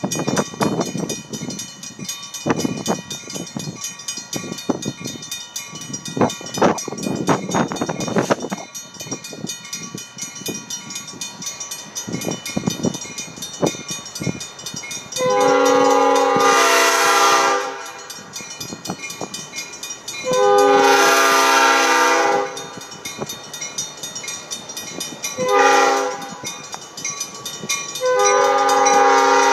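Baldwin RS4TC diesel locomotive's air horn sounding a chord of steady tones in the grade-crossing pattern: two long blasts, one short, then a long one starting near the end. Before the horn, uneven rumbling noise.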